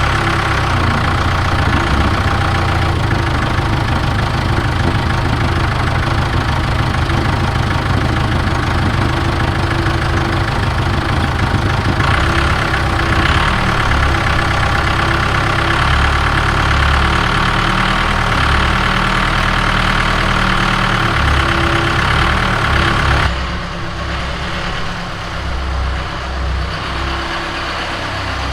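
Case 580 Super K backhoe's diesel engine running steadily; about three quarters of the way through it drops to a lower, quieter run.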